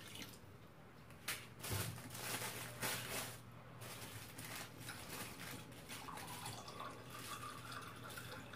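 Water poured from a mug into a metal pot, splashing, then a kitchen tap running into the mug to refill it, with a steadier trickle toward the end.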